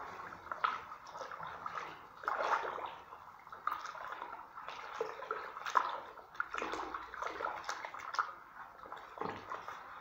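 Wet white screeding-putty mix being stirred in a plastic bucket, making irregular wet strokes about once a second.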